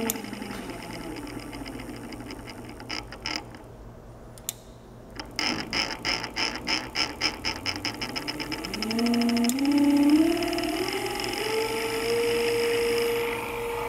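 Industrial servo motor on a test bench running through speed changes. Its whine has stepped down low at the start and ticks come at first sparsely. A run of ticks then speeds up, and the whine climbs in steps to a steady higher pitch for the last couple of seconds.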